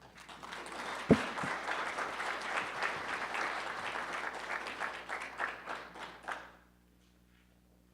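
Audience applauding in a hall: the clapping builds quickly, holds, and thins out about six and a half seconds in, with one sharp knock about a second in.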